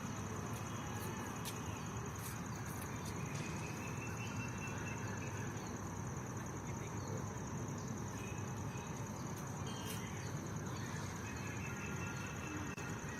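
Garden ambience: birds calling now and then over a steady high-pitched buzz and a constant background hum. A thin drawn-out call comes a few seconds in, and again near the end.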